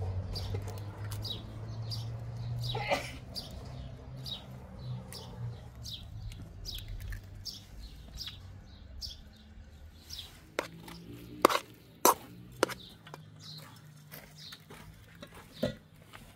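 Small birds chirping in short, repeated calls, with a few sharp clinks against a steel mixing bowl around the middle and once more near the end.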